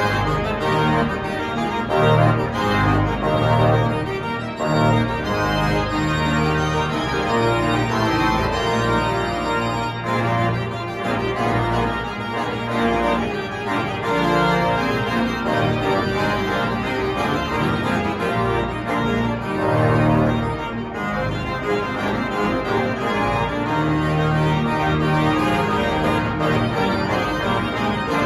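Church pipe organ playing a loud, full piece: held chords that change every second or so over a deep pedal bass.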